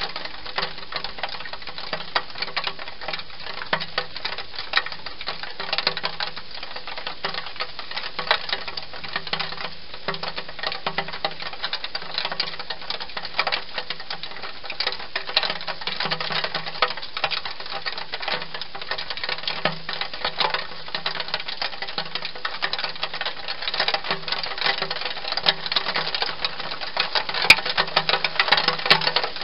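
Wild hedgehog eating from a bowl: a fast, continuous run of chewing and crunching clicks, a little louder near the end.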